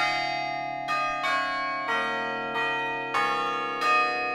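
Tower chime bells playing a slow tune. A new bell is struck every half second to a second, each at a different pitch, and each rings on under the next.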